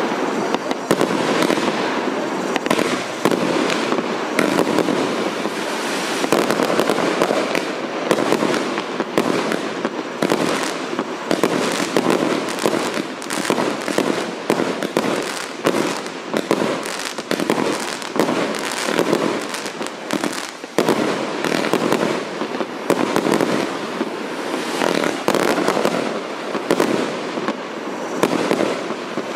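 Consumer multi-shot fireworks battery ('Kassiopeya' cake) firing a rapid, continuous barrage of shots and bursts, with only a brief lull about twenty seconds in.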